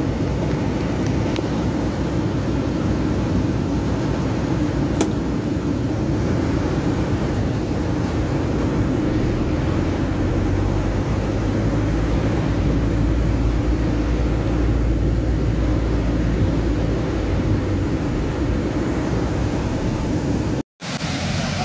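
Steady rumble and hiss inside a car driving through heavy rain: engine and road noise with rain on the car body. It cuts out briefly near the end.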